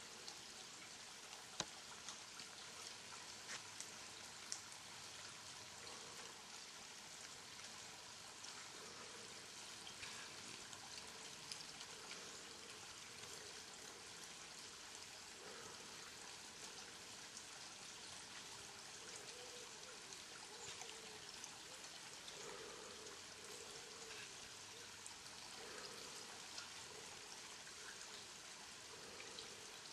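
Wild boars rooting in forest leaf litter, heard faintly over a steady hiss. Soft, short low grunts come about once a second from a few seconds in, and a few sharp snaps or clicks come in the first part.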